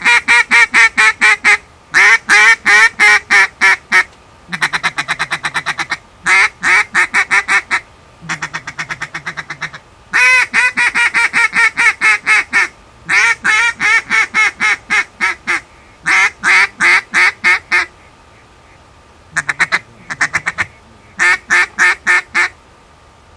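Duck call blown in about ten runs of quick, loud quacks, roughly five to a second, with short pauses between runs. This is calling to draw in ducks flying at dusk.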